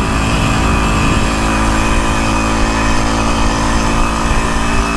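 The 49cc engine of a Motoped Survival Bike motorized bicycle running steadily at cruising speed, with wind rushing over the microphone.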